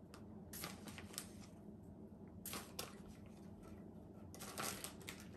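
Hands handling pizza toppings and their containers: irregular short rustles and light clicks in a few clusters, over a low steady hum.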